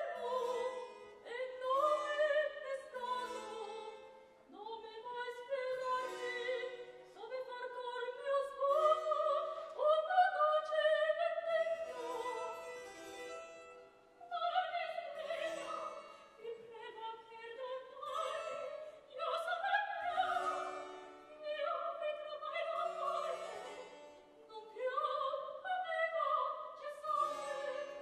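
Operatic singing in a stretch of recitative accompanied by harpsichord, the sung phrases broken by short pauses.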